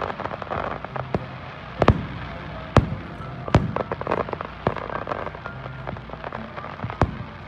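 Aerial fireworks bursting: several sharp bangs about a second apart, with crackling from the shells between them and a longer gap before a last bang near the end.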